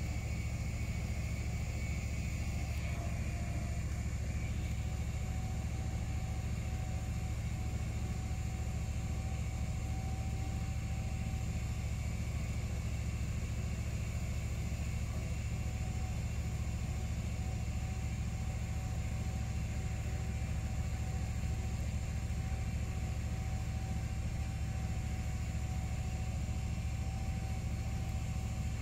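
Först TR6P tracked wood chipper running steadily, a constant low rumble, while its T-Max winch drags a log toward it. A faint steady whine joins about three seconds in.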